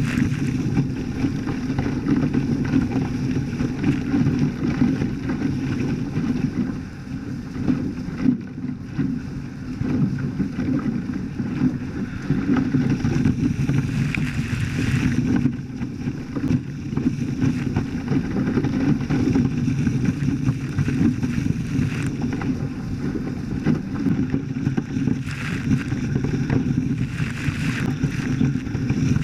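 Steady wind noise on the microphone with water rushing along the hulls of a Hobie Cat 14 catamaran under sail.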